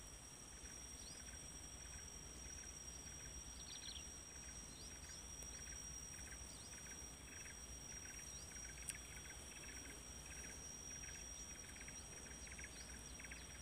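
Faint outdoor ambience of insects and birds: a steady high insect drone with rhythmic chirping a few times a second, and scattered short bird chirps. A single sharp click about nine seconds in.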